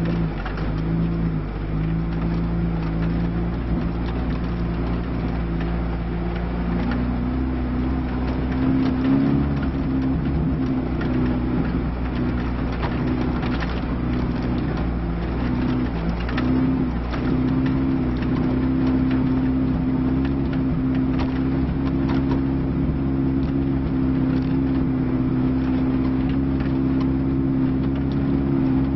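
Lada Niva's four-cylinder engine pulling the car over rough ground, heard inside the cabin; its pitch steps up about seven seconds in, wavers for a while, then holds steady at the higher speed. Scattered knocks and rattles from the body as it jolts over the track.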